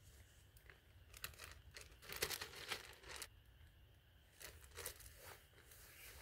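Clear plastic zip-top bag crinkling and rustling in the hands in short spells, the loudest for about a second around two seconds in.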